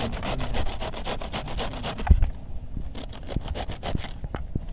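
Fast, rhythmic scraping or rasping strokes, about five a second, then one heavy low thump about two seconds in, followed by scattered sharp knocks.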